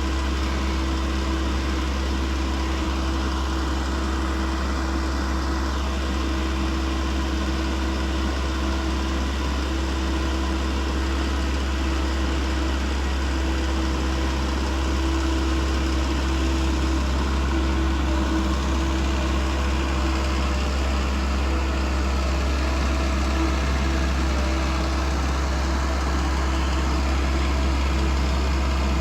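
An engine running steadily with a constant hum and low rumble, with no change in speed.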